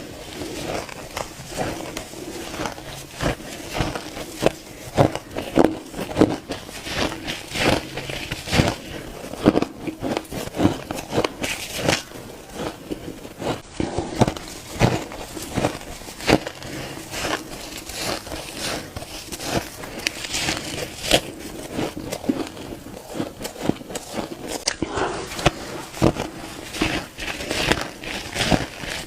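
Close-up crunching of shaved ice being bitten and chewed: a dense, irregular run of crackling crunches, several a second.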